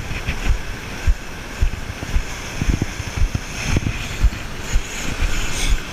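Wind buffeting a body-worn camera's microphone, in irregular low thumps over a steady rushing hiss.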